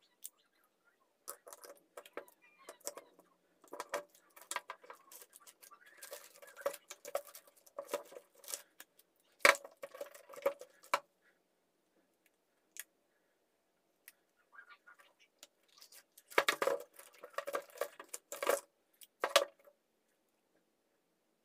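Parts of dismantled electric drills being handled: irregular clicks, knocks and rattles of metal and plastic pieces picked up and set down, with one sharp knock about nine and a half seconds in, a few quiet seconds after it, and a busier stretch of clatter near the end.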